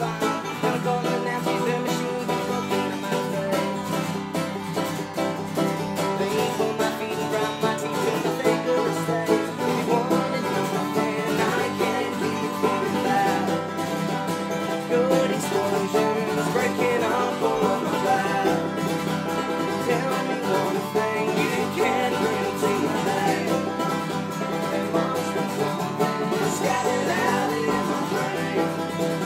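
Acoustic string band playing an upbeat, bluegrass-style roots tune: banjo picking over strummed acoustic guitar and a lap-played slide guitar.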